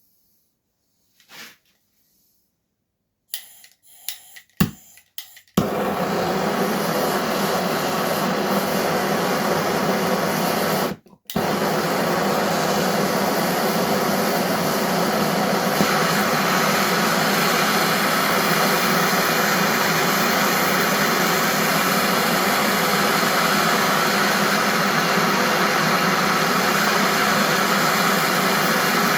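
A few sharp knocks, then a David Brown tractor engine running steadily, with a brief cut-out near the middle.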